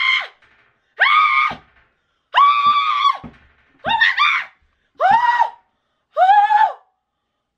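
A woman screaming in shock and disgust at finding a cockroach on her chicken sandwich: six loud, very high-pitched shrieks, about one a second, each cut off sharply.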